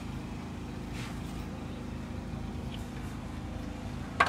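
A steady low mechanical drone, like an engine or motor running, with a single sharp click near the end.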